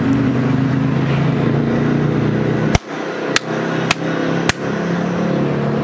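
Steady outdoor noise with a low mechanical hum, broken by four sharp clicks in the second half; after the first click the deepest part of the hum falls away.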